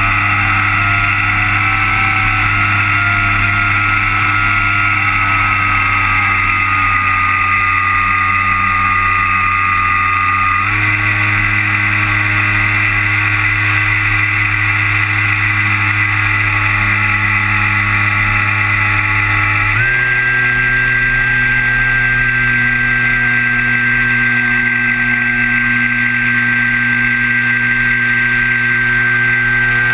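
Kyosho Stratus 2000 RC model plane's motor and propeller running in flight, heard from on board over a rush of wind. It is a steady whine that steps up in pitch about 11 seconds in and again about 20 seconds in.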